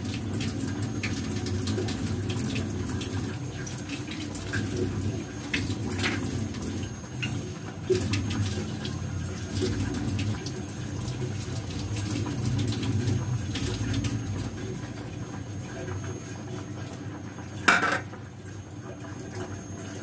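Tap water running into a kitchen sink as vegetables are washed by hand, with scattered knocks and clinks of utensils. One louder clatter comes near the end.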